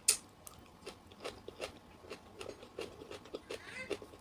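Close-up chewing of crunchy asinan betawi, pickled raw vegetables and fruit: a sharp crunch as a bite is taken right at the start, then steady crunching chews about two to three times a second.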